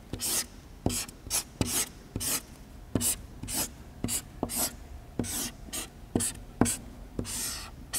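Handwriting: a quick series of short scratching strokes, about two a second, with light taps between them, as words are written out by hand for an audience to read.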